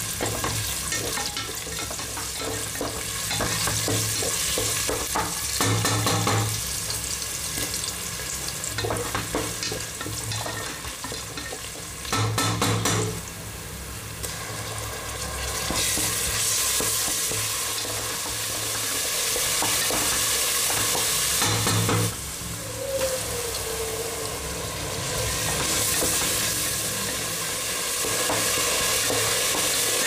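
Sliced onions frying in oil in an aluminium pressure cooker, sizzling steadily while a wooden spatula stirs and scrapes against the pot. The sizzle grows louder about halfway through as more ingredients go in.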